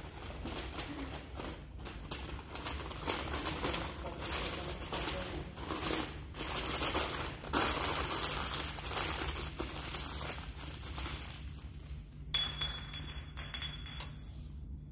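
Wrapping material being crinkled and rustled by hand as Christmas tree ornaments are wrapped up for storage, an uneven run of crackles and rustles. The rustling stops about three seconds before the end, leaving a faint high steady tone.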